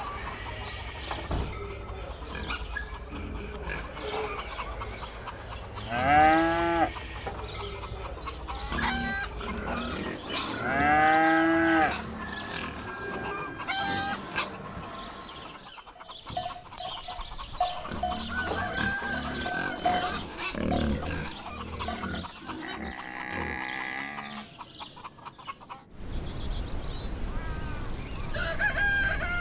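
Farm animals calling: two loud, drawn-out calls about six and eleven seconds in, with fainter animal calls later.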